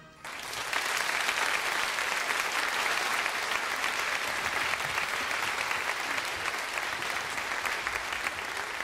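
Large audience applauding, a steady wash of clapping that eases a little near the end.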